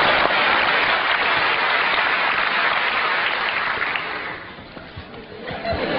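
Audience applauding, dying down about four seconds in, with crowd noise picking up again near the end.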